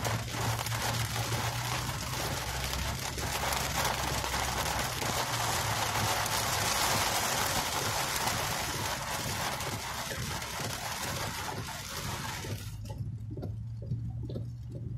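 Heavy rain drumming on a car's roof and windshield, a steady hiss over the car's low cabin hum. The rain noise cuts off abruptly near the end, leaving only the hum.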